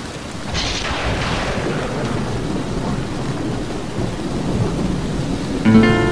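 Steady rain with rumbling thunder, and a sharper thunder crash about half a second in that fades away over a second or so. Near the end a sustained musical chord comes in over the rain.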